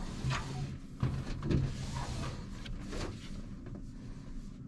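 Faint handling sounds: a hand brushing and lightly tapping the sheet-metal housing of a range hood, with a few soft knocks.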